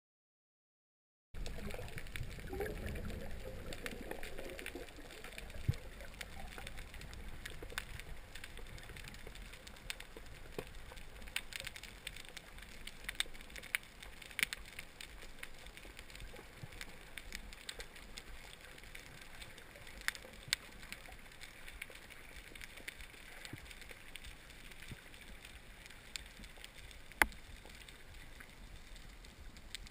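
Underwater ambience: a faint steady hiss scattered with sharp clicks and crackles, and some low water movement in the first few seconds after the sound cuts in.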